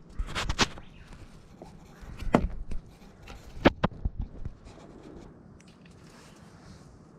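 A series of sharp knocks and clicks in three small clusters, the loudest near four seconds in, like things being handled, then only a faint hiss.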